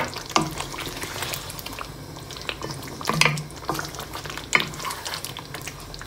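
A spatula stirring and scraping thick chicken masala gravy in a nonstick frying pan, with sharper scrapes about three and four and a half seconds in. Under it the gravy sizzles faintly as it simmers on a low flame.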